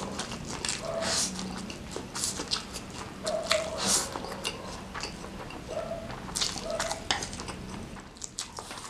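Close-miked slurping and wet chewing of spicy fried noodles: a series of short, sharp slurps about a second apart, with smacking and squelching of the mouthful in between.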